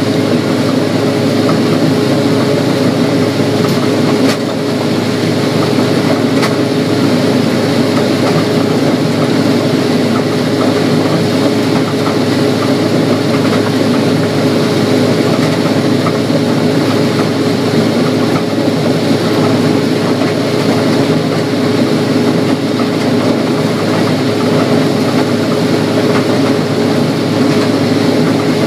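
Combine harvester running steadily while harvesting corn: a constant machine drone with a steady hum.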